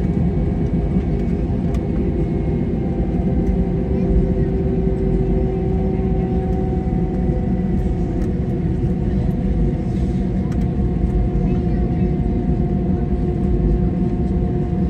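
Airbus A320 cabin noise while taxiing: the engines' steady idle hum, with a few held tones, over a low rumble from the airframe and wheels.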